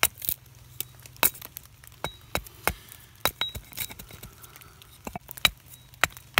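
Carving axe hewing a green sugar maple spoon blank held in the hand: a quick, irregular run of short chopping cuts, about a dozen, as wood shavings split off.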